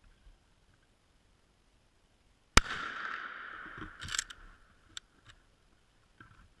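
A single gunshot at a deer: one sharp, loud crack with an echo that rolls away over about a second and a half, followed by a few fainter clicks and knocks.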